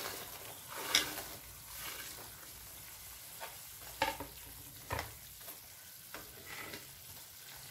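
Sugar syrup bubbling at the boil in a non-stick pan, with a steady sizzle, as fried bread pieces are added and stirred in with a steel spoon; the spoon knocks against the pan a few times.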